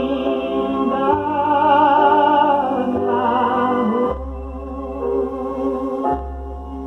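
Old vinyl LP of a gospel hymn playing its closing bars: a held, wavering note over sustained chords that stops about four seconds in, leaving softer held chords.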